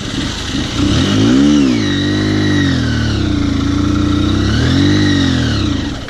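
Honda CBF150's single-cylinder four-stroke engine revving hard as the motorcycle strains up a very steep dirt slope, the revs rising and falling twice. The engine lacks the power to make the climb.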